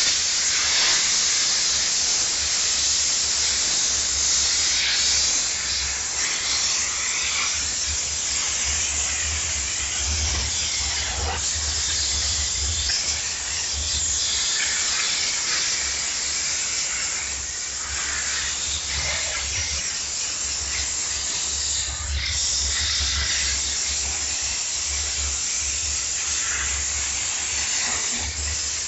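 Steam jet gun of a diesel-heated steam cleaner spraying steam at up to 16 bar: a steady, loud hiss that starts as the gun is opened, with a low hum underneath.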